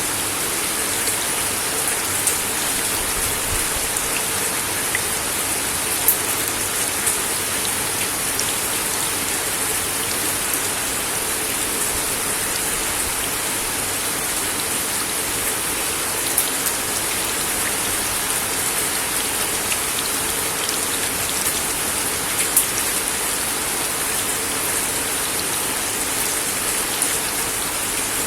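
Steady rain falling on a wooden deck: an even hiss with individual drops ticking sharply on the boards now and then.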